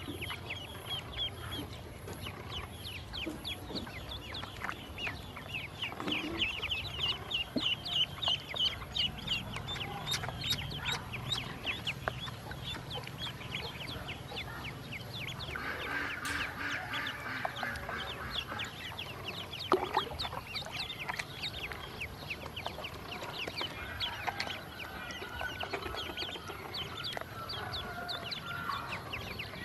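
Ducklings peeping continuously: a dense stream of short, high, falling chirps. Lower-pitched calls come in around the middle and again near the end, and a single sharp click is heard about two-thirds of the way through.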